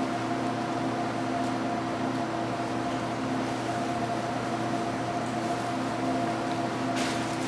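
Steady equipment hum in a cardiac catheterization lab: a few held tones over an even hiss, unchanging throughout.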